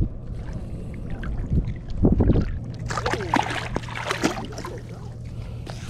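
A hooked redfish thrashing and splashing at the water's surface as it is landed and lifted out by hand with a lip grip, with a burst of splashing about two seconds in and choppier splashing near the middle. Wind and lapping water run underneath.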